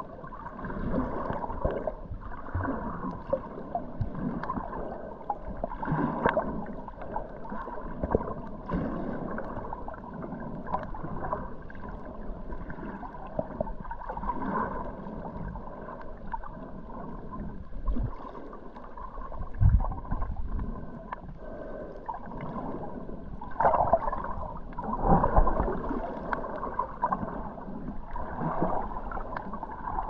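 Muffled underwater sound of the sea picked up by a submerged GoPro Hero11: a steady wash of water noise with gurgles, swelling into louder swishes about twenty and twenty-five seconds in.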